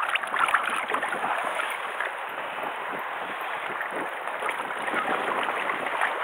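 Seawater sloshing and lapping against the rocks at the water's edge, with a few splashes in the first second as the gutted rabbitfish is rinsed in the sea.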